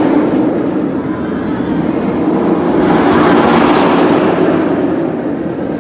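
Bizarro, a Bolliger & Mabillard floorless steel roller coaster, with its train rushing along the track overhead. The loud, steady rumble swells about three seconds in as the train passes closest, then fades near the end.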